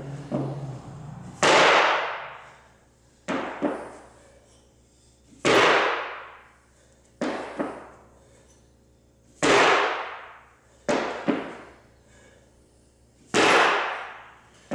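Repeated drop snatches with a loaded barbell: about every four seconds a loud clatter as the lifter drops under the bar, feet slapping down and the bar and plates clanging, ringing out for about a second. Between these come lighter double knocks.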